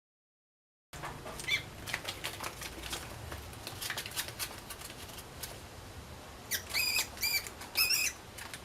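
Mouse squeaking: after a second of silence and some faint scratchy clicks, a quick run of about four short, high-pitched squeaks near the end.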